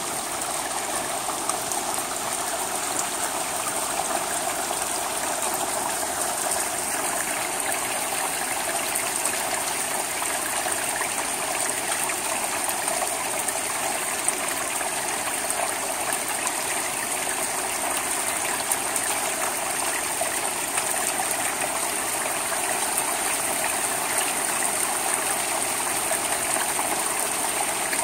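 Steady rain falling on a wet asphalt-shingle roof and its gutter: an even hiss with many fine drop ticks through it.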